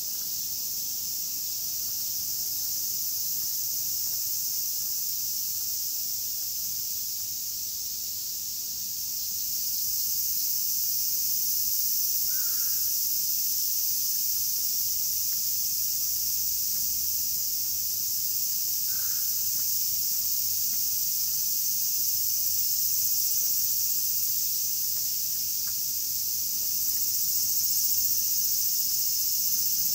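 A steady, high-pitched outdoor insect chorus that grows louder about a third of the way in, with two short bird calls about six seconds apart.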